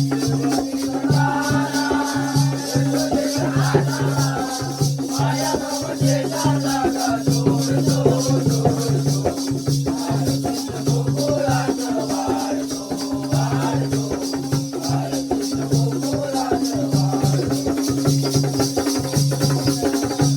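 Jakhadi folk music: a steady held drone, a low drum beating in a repeating pattern, and fast, continuous jingling, with a wavering melody line above.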